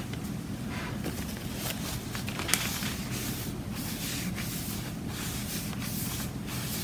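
A wadded pad rubbed and dabbed across glossy photo paper that is wet with alcohol ink, giving an uneven soft scratchy wiping, over a faint steady low hum.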